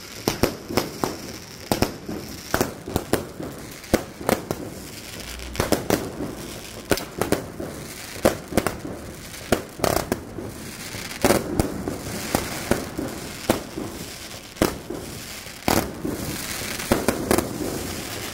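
A ground-launched consumer firework barrage firing shot after shot: an irregular string of sharp bangs and cracks, about one or two a second, with crackling between the bursts.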